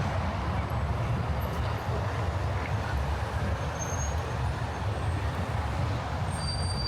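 Steady low rumble of city traffic, with faint brief high-pitched squeals in the middle and near the end.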